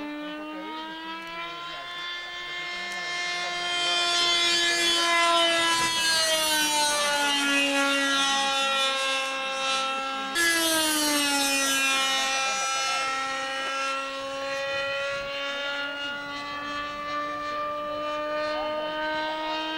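Radio-controlled A-4 Skyhawk ducted-fan model jet in flight: a steady, high engine whine that grows louder and drops in pitch as the model passes, twice. The second drop follows an abrupt jump in the sound about ten seconds in.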